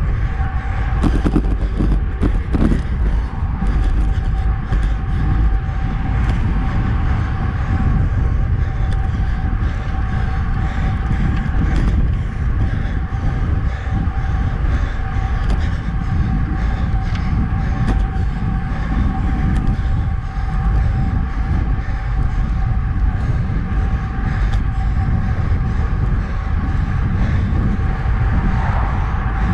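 Wind rushing over a handlebar-mounted GoPro and tyre noise from a road bike riding on Specialized Roval Rapide CLX64 deep-section carbon wheels at about 30 km/h. It is a steady loud rumble with a thin steady hum above it.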